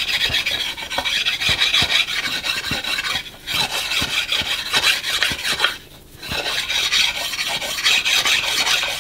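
Axe puck sharpening stone rubbed briskly back and forth along a smooth wooden axe handle, a continuous rasping scrape of stone on wood that roughens the sanded handle to give it grip again. The scraping breaks off briefly twice, a little past three seconds in and again about six seconds in.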